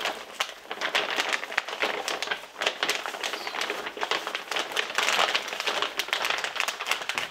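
Plastic packaging rustling and crinkling, a quick run of small crackles, as a hand rummages for and draws out an underwear pack sealed in a plastic pouch.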